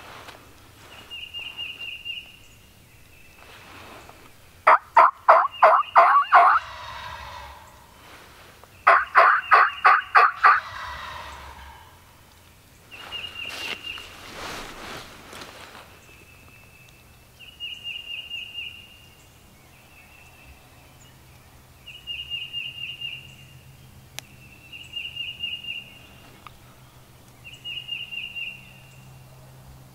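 Wild turkey gobbler gobbling loudly twice, about four seconds apart, each gobble a fast rattle. A small bird's short high trill repeats every few seconds.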